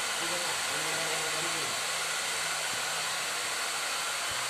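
Steady rushing hiss of blowing air from an electric blower, with faint voices underneath.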